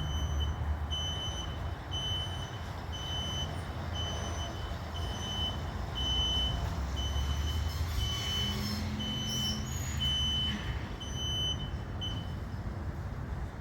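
A vehicle's reversing alarm beeping about twice a second over a low engine rumble; the beeping stops near the end.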